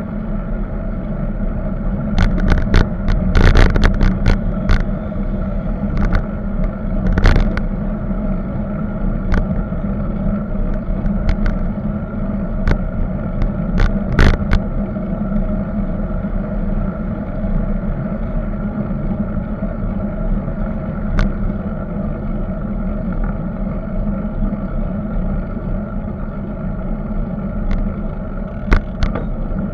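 Continuous wind and road rumble picked up by a camera on a moving bicycle, with sharp knocks and clicks at times, bunched around two to four seconds in and again near seven and fourteen seconds.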